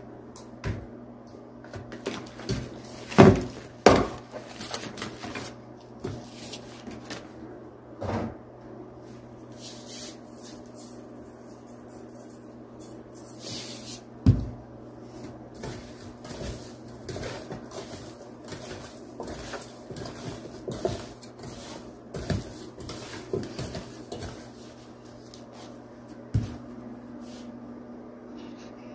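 Knocks and clatter of kitchen handling: raw chicken pieces and a plastic meat tray being handled over a stainless steel pot, with a steady low hum underneath. The loudest are two sharp knocks a few seconds in.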